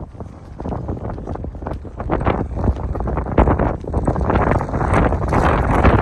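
Wind buffeting the microphone in a low rumble that grows stronger toward the end, with the walker's footsteps on brick paving.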